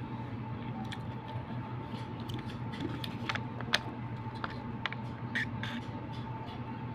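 Eating and drinking sounds: chewing with scattered small mouth clicks and smacks, then the handling of a plastic juice pouch and sipping through its straw, over a steady background hum.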